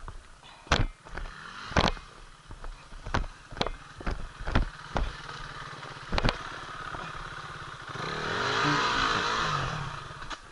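Enduro motorcycle engine running over rough ground, with many sharp knocks and clatter. About two seconds before the end, the engine revs up louder and falls back.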